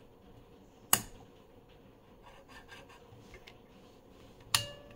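Clicks from the front-panel controls of a vintage HSE STIMI-1 pulse generator as they are worked by hand. One sharp toggle-switch click comes about a second in, then a few faint ticks, then a quick run of clicks from the rotary amplitude knob near the end.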